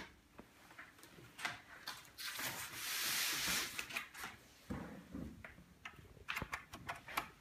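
Cable-handling noises: scattered small clicks and knocks as a cable plug is pushed in and cables are moved, with a longer rustling swish about two to four seconds in.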